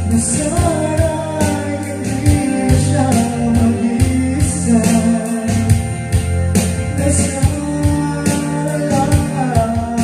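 Karaoke song playing from a Platinum Reyna SE karaoke player: backing music with a singing voice carrying a Tagalog-language melody.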